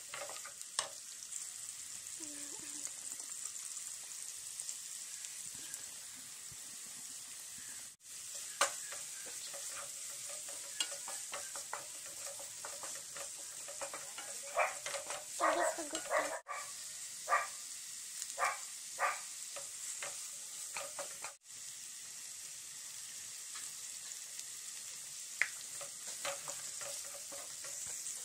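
Chopped vegetables sizzling in a nonstick wok, stirred with a wooden spatula that scrapes and taps against the pan, with the stirring busiest in the middle. The sound cuts out briefly a few times.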